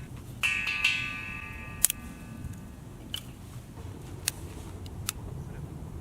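Two metallic clangs about half a second apart, each ringing on for about a second, followed by a few light clicks and taps.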